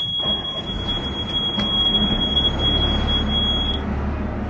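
Fishing boat's engine running and growing louder as the boat is manoeuvred round, with a steady high-pitched electronic beep held for nearly four seconds before cutting off sharply.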